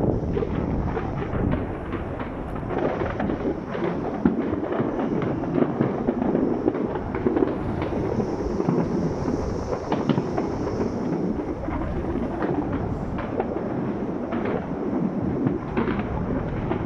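Fireworks going off: a dense, continuous run of overlapping bangs and crackles, with the sharpest crack about four seconds in.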